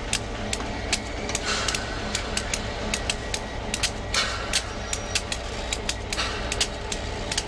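Class 59 locomotive's EMD two-stroke V16 diesel running with a steady low drone as it moves slowly past. Frequent sharp clicks run through it, and three short hisses come about a second and a half, four and six seconds in.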